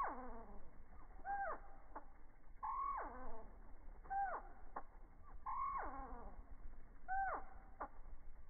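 Hummingbird calls slowed down far below their natural pitch: low, drawn-out falling calls that repeat about every second and a half, two call shapes taking turns.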